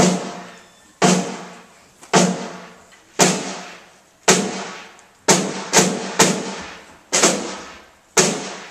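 Snare drums struck in single loud strokes about once a second, each ringing out with a long reverberant decay; near the middle the strokes quicken to about two a second for three beats before returning to the slower pulse.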